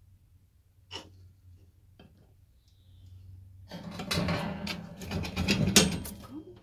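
Quiet at first, with a few faint clicks. About four seconds in, loud rustling and scraping with many clicks starts, as of plastic bags and objects being shifted about.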